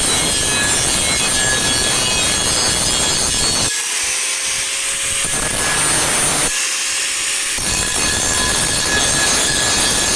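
Handheld power tool grinding on a metal car wheel rim, a continuous harsh grinding noise with a steady high whine. The grinding eases twice in the middle, leaving the motor's tone, as if the tool is lifted off the rim.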